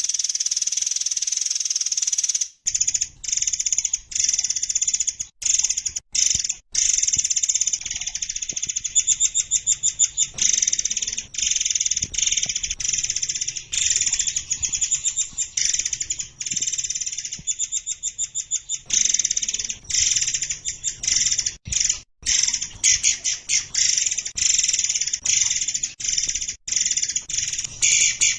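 Several songbirds singing at once in a dense, continuous chatter of rapid high trills and repeated notes, dropping out abruptly for split seconds several times.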